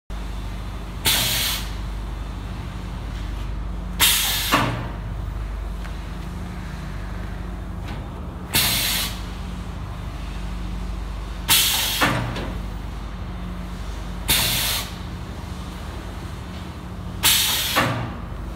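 Case corner rounding machine cycling six times, each stroke a sharp hiss of air lasting about half a second, roughly every three seconds, over a steady low machine hum.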